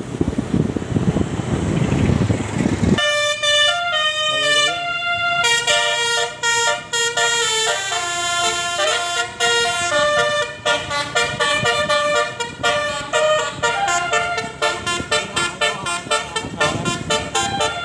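Bus's multi-tone musical air horn (telolet basuri) playing a tune of stepped notes, starting about three seconds in after a low rumble. From about ten seconds in, the horn switches to a fast run of short repeated notes.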